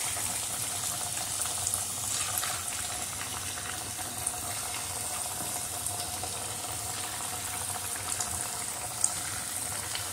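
Chicken chilli pakoras deep-frying in a deep pan of hot oil: a steady bubbling sizzle, with a few brief sharper crackles.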